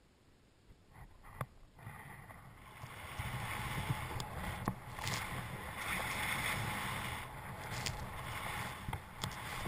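Snowboard riding down through deep powder: a rushing, swishing hiss of the board cutting snow, mixed with wind on the camera's microphone. It starts quiet, with a few light knocks about a second in, then builds from about two seconds in and swells and eases with the turns.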